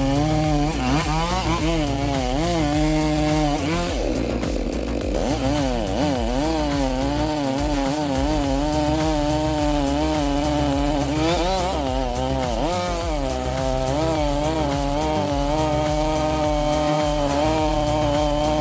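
Chainsaw running at high revs while cutting into a large tree trunk, its engine pitch wavering as the chain loads up in the wood and recovers. The revs drop and climb back about four seconds in, and swing again near the twelve-second mark.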